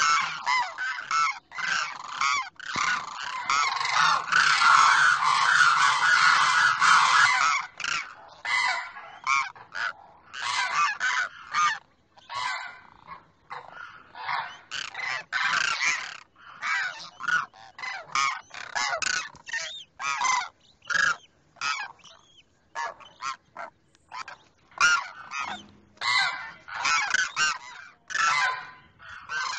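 Demoiselle cranes calling: a dense run of overlapping calls for the first several seconds, then a long series of short separate calls with brief gaps.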